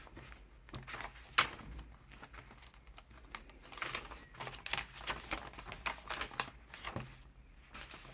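Paper pages and cards of a handmade junk journal being handled and turned: rustling with scattered light clicks and taps, one sharper tap about a second and a half in.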